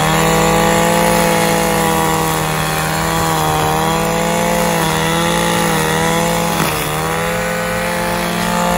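Gas-powered string trimmer (weed eater) engine running at high speed, with its pitch sagging briefly a few times.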